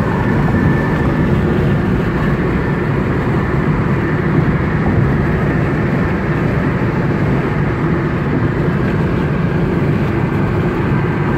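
Steady road and tyre noise heard from inside a car cabin at highway speed.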